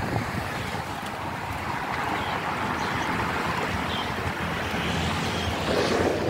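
Strong wind blowing across the microphone: a steady rushing noise with a low rumble underneath.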